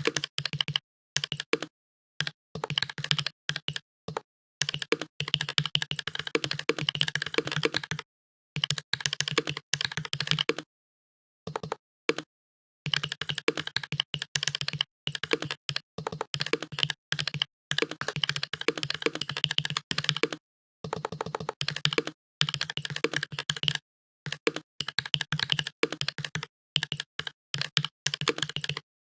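Fast typing on a computer keyboard: rapid key clicks in runs of one to three seconds, broken by short pauses.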